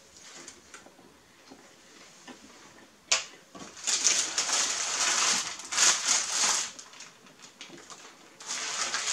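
A paper sandwich wrapper being crumpled and folded by hand. Loud crinkling starts about three seconds in with a sharp crackle, stops for a moment, then starts again near the end.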